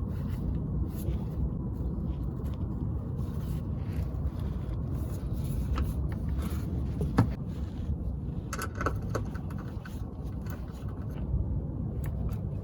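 Small clicks and scraping from fuel-line quick-connect fittings and the fuel filter being handled and pushed together, with one sharper click about seven seconds in, over a steady low rumble.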